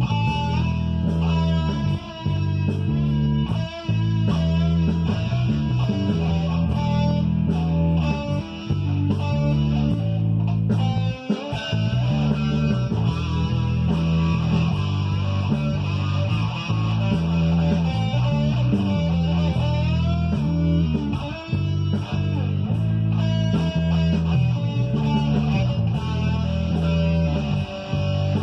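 Electric guitar played over a rock backing track with bass and drums, including a few bent notes; the band stops briefly about eleven seconds in.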